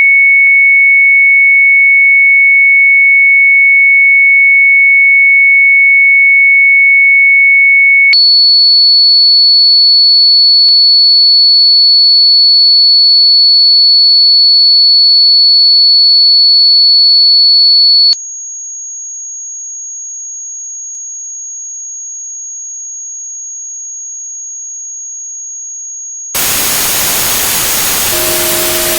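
Electronically generated test tones: a loud, steady pure sine tone, high and whistle-like, jumps to a higher pitch about 8 s in and to a still higher, quieter, piercing tone about 18 s in. About 26 s in, loud white-noise hiss takes over, and two low steady tones join just before the end.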